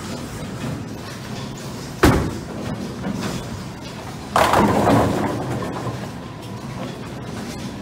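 Bowling ball thuds onto the wooden lane about two seconds in and rolls, then crashes into the pins about four seconds in, with a burst of pin clatter that dies away over about a second.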